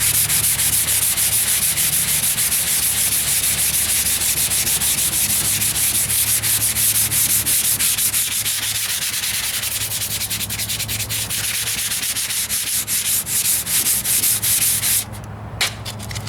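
Hand sanding primer-coated auto body filler on a truck wheel arch with 220-grit sandpaper: a steady, rapid scratchy rasp of quick strokes. It stops about a second before the end, with one short stroke after.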